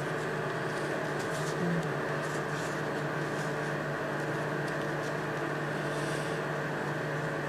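Steady machine hum with several held tones, over which come faint, scattered papery ticks and rustles as folded paper triangles of a 3D origami model are pressed and adjusted by hand.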